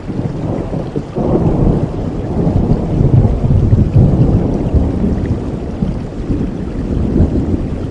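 Rain falling with a long roll of thunder that swells about a second in, rumbles loudest midway and dies away near the end.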